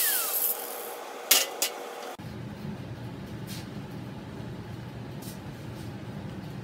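Angle grinder released after grinding steel, its whine falling quickly as the disc spins down. About a second and a half in, two sharp metallic clinks as the tools are set down on the steel welding table, followed by a steady low hum.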